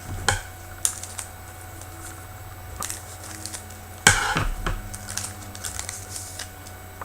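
Hockey trading cards being handled and flipped through: a run of small clicks and ticks as the cards are slid and set down, with one louder knock about four seconds in. A faint steady electrical hum lies underneath.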